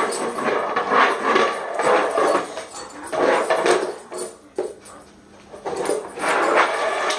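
A dog shoving a bowl across a tile floor with its nose, the bowl scraping and clattering in irregular bursts, easing off briefly a little past the middle before starting again.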